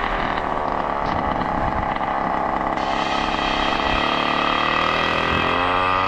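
Goped Sport scooter's Zenoah G290RC two-stroke engine with a DDM Dominator expansion pipe, running while riding; its pitch climbs in the second half as it revs up.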